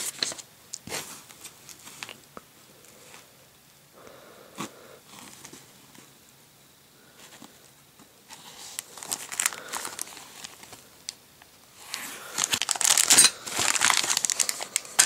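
Clear plastic parts bags crinkling as they are handled in a cardboard box, in scattered bursts, busiest and loudest in the last few seconds.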